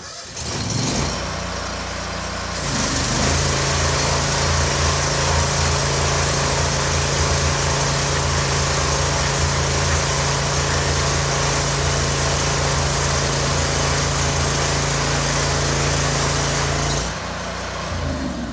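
Truck-mounted hot-water pressure washer (180 °F water at 2600 PSI) running: a steady machine hum under a loud hiss of high-pressure spray jetting inside the enclosed trash-can washer. It comes on at once, grows louder twice in the first few seconds, and shuts down about a second and a half before the end.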